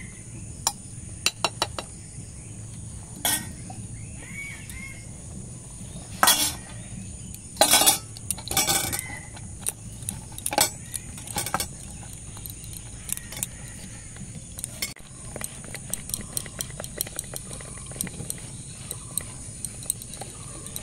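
Steel spoon scraping and clinking against an aluminium pressure cooker and a steel plate as biryani is spooned and tipped out. A run of louder metal clatters comes about six to nine seconds in.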